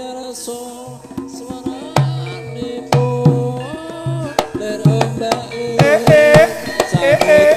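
Live Javanese stage music driven by kendang hand-drum strokes, with a held melody note underneath. A wavering high melody line comes in about six seconds in.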